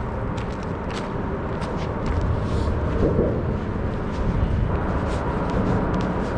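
Footsteps at a walking pace, short regular steps about twice a second, over a steady outdoor background noise.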